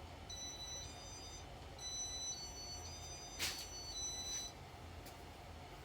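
Casablanca Spirit of Saturn ceiling fan's electronic control beeping as its demo mode starts: a run of short, high electronic beeps that step between a few different pitches, with a couple of sharp clicks about three and a half seconds in.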